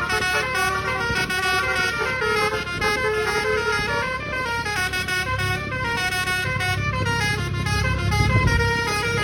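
Indonesian bus telolet horn (basuri type) playing a quick tune, several notes sounding together and stepping up and down in pitch. The bus's engine rumbles underneath and grows louder about five seconds in.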